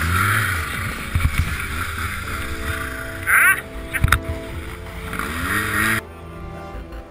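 Snowmobile engine running hard in deep powder, with wind and snow noise over the on-board camera, revving up sharply about three seconds in. A couple of sharp knocks follow as the sled tips over on the slope. The engine sound cuts off suddenly about six seconds in, leaving background music.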